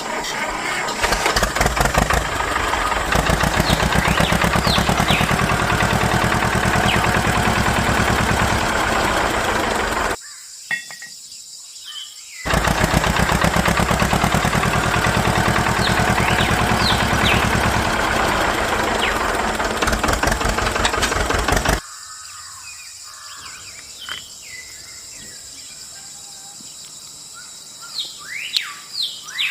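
A small motor running with a fast, even rhythm in two stretches of about ten seconds, with a short break between them, cutting off near the end. Birds chirp in the quieter last part.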